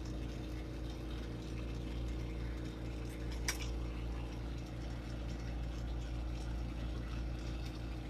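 Glassworking bench torch burning steadily: an even rush of gas flame over a low, steady hum, with one sharp click about halfway through.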